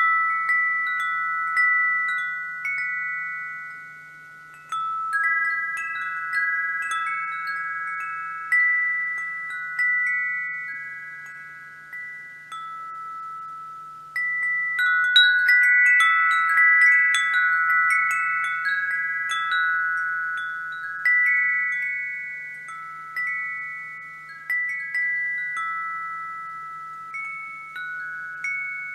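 Wind chimes ringing in an irregular pattern: a handful of high metal tones struck again and again, each ringing out and fading. A busier flurry of strikes comes about halfway through.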